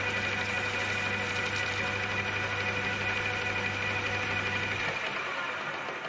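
Metal lathe running with a steady hum and whine, its three-jaw chuck spinning. About five seconds in the motor is switched off and the lathe spins down, the sound fading away.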